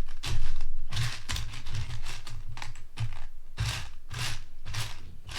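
Plastic Lego pieces clattering and clicking in quick, irregular handfuls as they are sorted through by hand, with some dull knocks.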